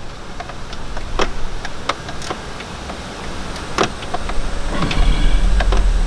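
Scattered light clicks and knocks of a hand groping deep in a car's engine bay among hoses, wiring and metal brackets. A low rumble sets in near the end.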